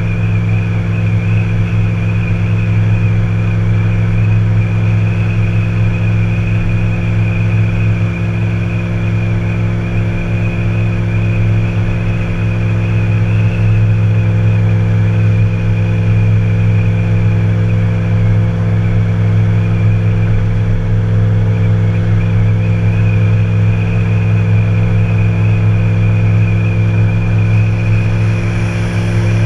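Tow vehicle driving at a steady speed: a continuous engine and road drone with a strong low hum and a thin high whine above it.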